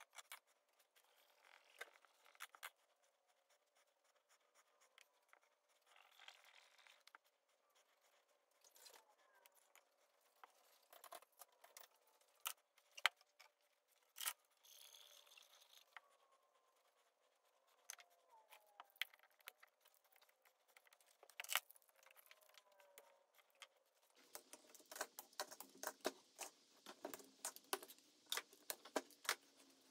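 Near silence with scattered faint clicks and knocks of wood blocks and bar clamps being handled, coming thicker in the last six seconds.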